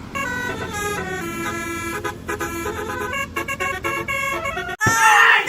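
Multi-tone 'telolet' horn playing a tune, several notes sounding together and changing in steps. Near the end it cuts off and a child starts crying.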